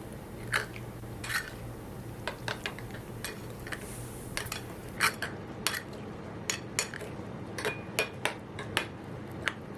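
Spoon clicking and scraping against a mixing bowl while stirring a thick prawn, egg and bread-crumb mixture, in short irregular clinks about once or twice a second.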